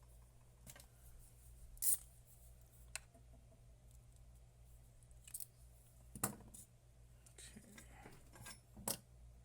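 Small metal hand tools being handled at a repair bench: a few scattered light clicks and taps, about five sharp ones, over a faint steady low hum.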